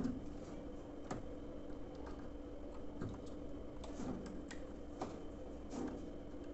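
Scattered light clicks and taps, about one a second, as wire connectors are handled and pushed onto the terminals of a washing machine's brake actuator, over a faint steady hum.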